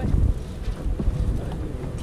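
Wind buffeting the microphone on an open boat deck, over a boat's steady low hum.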